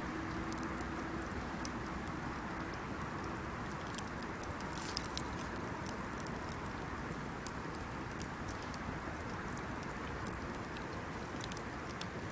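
Wood bonfire burning: a steady hiss with scattered sharp crackles and pops, a small cluster of them about five seconds in.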